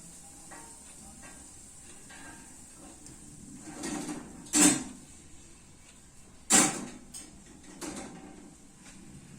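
Kitchen handling sounds: two sharp knocks about two seconds apart, with softer sliding scrapes around them, like a kitchen drawer or cupboard being opened and shut.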